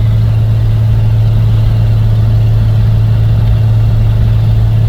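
1988 Jeep Cherokee's 4.0-litre straight-six running with a steady low exhaust drone, heard from inside the cab. The exhaust manifolds are cracked and the pipe carries a temporary tape repair.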